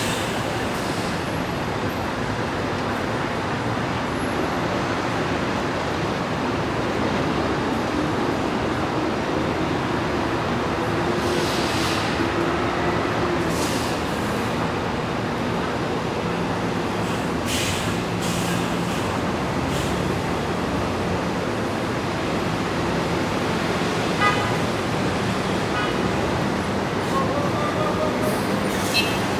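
Dense rush-hour city street traffic: a steady mix of car, truck and bus engines and tyres, with several short hisses from air brakes.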